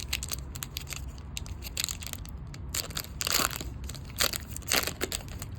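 Foil wrapper of a baseball card pack crinkling and tearing as it is opened: a run of sharp crackles with a few louder rips past the middle.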